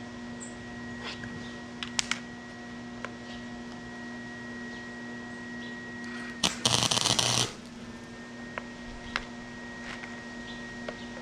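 Electric welder striking a short tack weld on the scooter's steel muffler: about a second of loud crackling sizzle some six and a half seconds in. A steady electrical hum runs underneath, with a few light metallic clicks.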